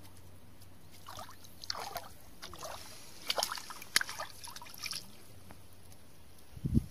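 A hooked roopchand (red-bellied pacu) thrashing at the water surface as it is brought to the bank, a run of irregular splashes between about one and five seconds in. A couple of low thumps near the end, louder than the splashes.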